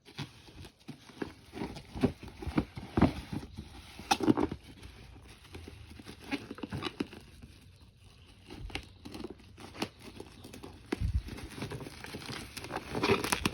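Hairdryer packaging being unboxed by hand: irregular crinkling and rustling of wrapping with scattered taps and knocks, louder about two to four seconds in and again near the end.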